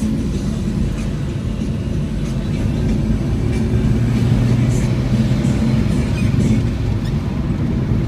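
Steady low engine hum and road noise of a moving vehicle, heard from inside its cabin.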